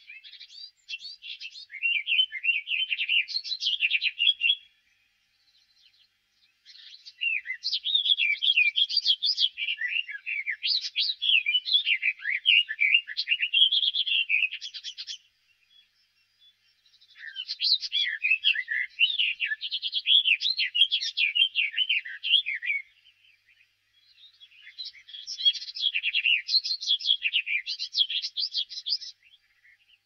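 Garden warbler singing: four long phrases of rapid, rich warbling, with short pauses between them.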